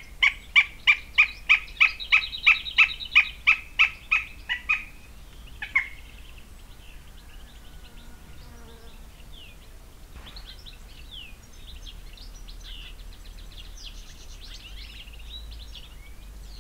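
Northern goshawk calling a rapid kek-kek-kek series, about three calls a second for some five seconds, then one last call. Faint chirps of small birds follow.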